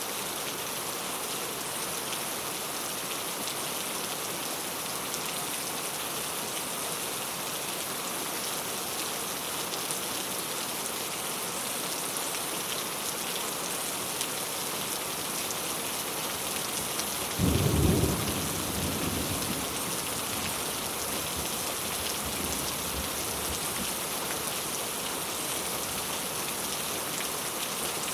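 Steady rain pattering on a clay-tile roof. About two-thirds of the way through, a single loud clap of thunder breaks in low and rumbles away over a few seconds.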